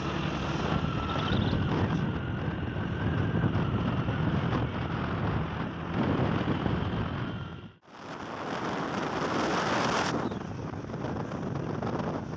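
Motorcycle engine running on the move, with wind buffeting the microphone. About eight seconds in, the sound cuts off abruptly and gives way to mostly wind and road noise.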